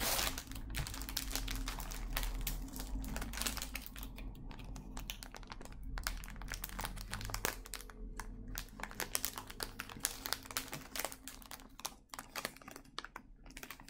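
Thin plastic sandwich wrapping crinkling and crackling as it is handled and pulled open by hand, a long run of small irregular crackles.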